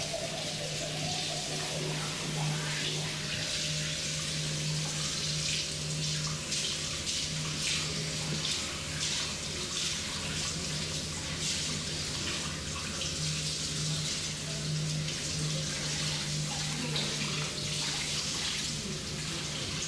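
Water running steadily from a tap into a sink, with short splashing or scrubbing noises on top and a steady low hum underneath.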